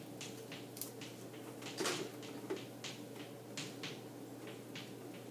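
Chalk on a chalkboard: a run of short, irregular taps and scrapes as lines are drawn, the strongest about two seconds in, over a steady low room hum.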